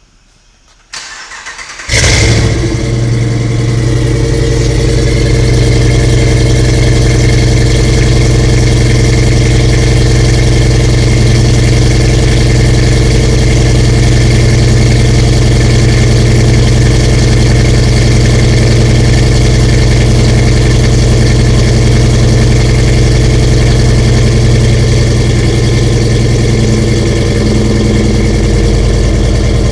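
A Gen 4 Hemi V8 in a Jeep LJ is cranked about a second in, catches about two seconds in, and settles into a loud, steady high idle through a full 2.5-inch mandrel-bent exhaust with a muffler and no catalytic converters. The steady fast idle is the Gen 4 Hemi's cold-start high-idle routine.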